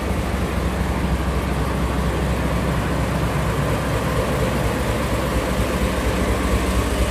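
Diesel locomotive of the Sagano Romantic Train idling, a steady low rumble with a faint constant hum.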